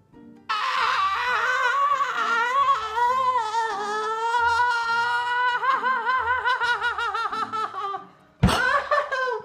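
A man's long, high-pitched squeal of delight with a wobbling pitch, over light background music. Near the end there is a sudden thump, then a shorter squeal.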